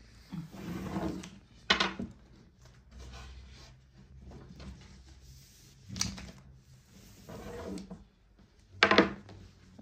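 Long thin wooden rolling pin (oklava) rolling out thin baklava dough on a wooden board: soft rolling noise with three sharp wooden knocks of the rod on the board, the loudest near the end.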